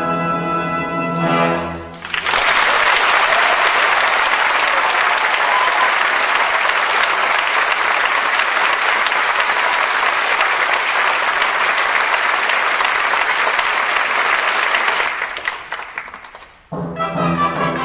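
Live orchestra music breaks off about two seconds in and an audience's applause takes over, running evenly for about thirteen seconds before dying away; the orchestra starts up again near the end.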